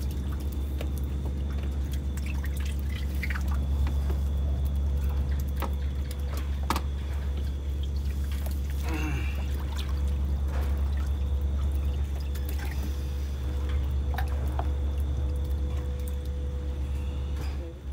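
Water dripping and trickling with scattered small clicks and knocks from the wet catch being handled, over a steady low hum.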